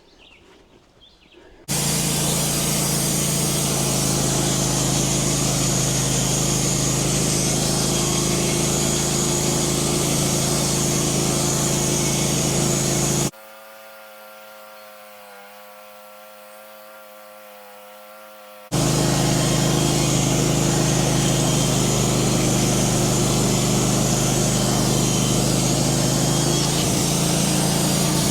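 Gas chainsaw on an Alaskan chainsaw mill, running at full throttle through a large white pine log in a leveling cut. It starts about two seconds in and runs steadily. Midway it drops abruptly to a quieter steady hum for about five seconds, then comes back at full cut just as abruptly.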